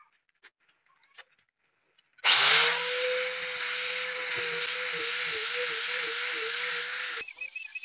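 Angle grinder fitted with a sanding disc, switched on about two seconds in after a few faint handling knocks: a quick rising whine as it spins up, then a steady high whine at full speed. Near the end the whine drops sharply in pitch and wavers as the disc is set down on the wooden tabletop and loaded by sanding.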